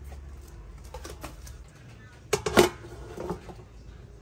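Clicks and knocks of cookware being handled, loudest in a short clatter about two and a half seconds in.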